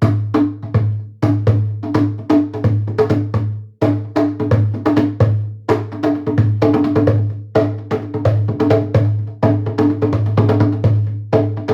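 Drum kit played in a busy groove of rapid, sharp hits over a steady low bass sound, breaking off for a moment just before four seconds in.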